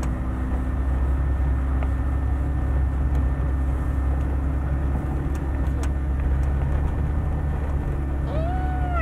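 Steady low rumble of a car's engine and tyres heard from inside the cabin while driving. Near the end a high, drawn-out call with a falling pitch starts up.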